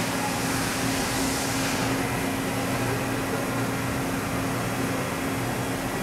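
Steady mechanical hum of a large CNC bridge mill running, with a constant low tone. A higher hiss fades out about two seconds in.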